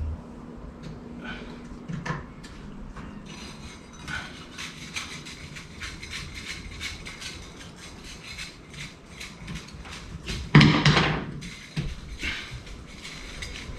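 Hand tools clinking and tapping on the metal of a Chevrolet 350 V8 as it is being unbolted, a scatter of small metallic knocks with one louder clank about ten and a half seconds in.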